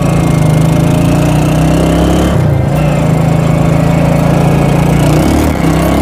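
Motorcycle engine running hard as the bike accelerates, its revs climbing and dipping briefly twice, about two and a half and five seconds in, as at gear changes.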